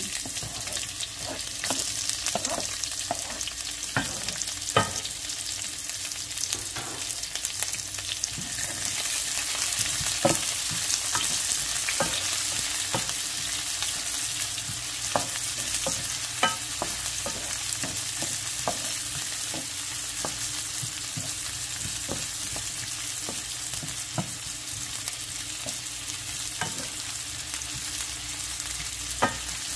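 Diced onion and garlic sizzling in oil in a frying pan, a steady hiss, while a wooden spatula stirs them, with scattered clicks and scrapes of the spatula against the pan.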